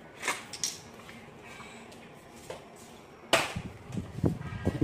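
Plastic toys being handled: a couple of light clicks, then about three seconds in a louder run of knocks, clatter and rustling.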